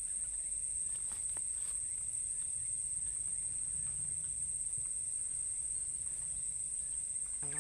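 Continuous high-pitched insect chorus, a steady unbroken shrill whine, with a few faint ticks about a second in.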